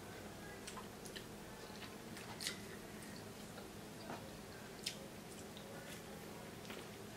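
Quiet eating sounds: wet mouth smacks and chewing with scattered sharp clicks, the loudest about two and a half and five seconds in, as a corn cob is dipped in butter sauce in a plastic tub and bitten.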